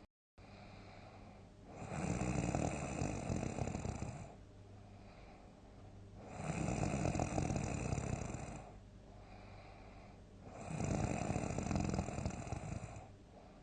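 A person snoring loudly: three long snores, each about two and a half seconds, coming about every four seconds, with quieter breathing between them.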